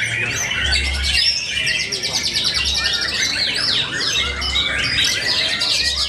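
White-rumped shama singing a fast, varied song of whistles, pitch sweeps and rapid buzzy trills.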